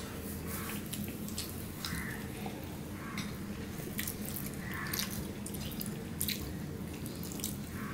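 Eating by hand: wet chewing and lip smacks, with short clicks of fingers and food on china plates, over a steady low hum.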